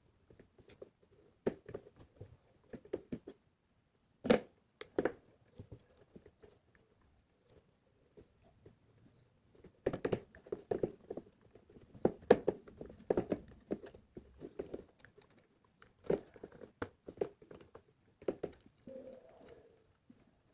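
Irregular small clicks, taps and rustles of hands working on wires and small plastic parts of an electronics build. Two sharper clicks come about four seconds in, and a busier run of handling about ten seconds in.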